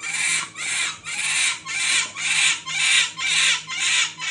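A scrub brush scrubbed back and forth by a capuchin monkey: an even rhythm of scratchy bristle strokes, about two a second.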